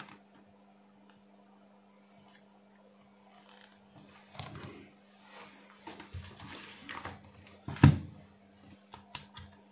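Workbench handling sounds over a faint steady hum: soft knocks and rustles as a multimeter and its leads are handled, one sharp knock near the end as the meter is set down, then a few light clicks as its rotary dial is turned.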